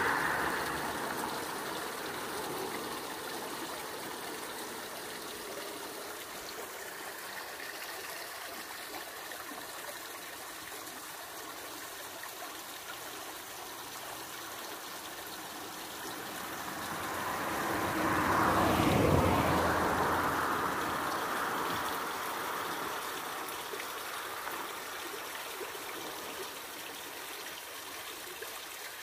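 Tinguiririca River rushing over rocks, a steady churning water noise. Past the middle, a louder rush with a low rumble swells up and fades away over a few seconds.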